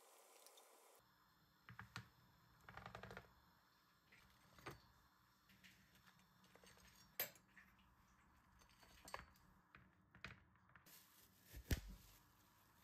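Faint hiss of oil frying that cuts off about a second in, then scattered light clicks and clinks of a metal slotted spoon and knife as fried breaded chicken patties are set on a woven bamboo tray, the loudest clink near the end.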